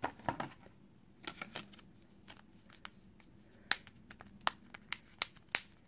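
Plastic back cover of a Samsung Galaxy On5 being pressed onto the phone, a series of small sharp clicks as its clips snap into place, more of them in the second half.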